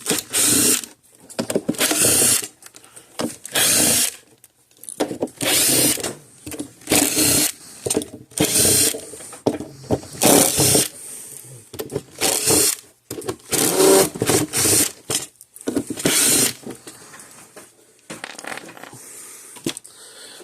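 Power drill driving an Allen bit in short bursts, about ten over the stretch, backing out the Allen-head screws of a Gallagher W210 scale indicator.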